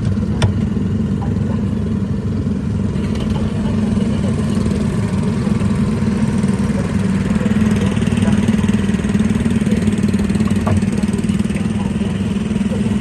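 Autopia ride car running steadily along the track, its motor's low hum swelling a little past the halfway point, with a single sharp click about half a second in.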